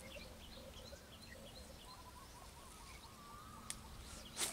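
Small birds chirping over and over in quiet open-air ambience, with a click and then a short swish near the end as a fishing rod is cast.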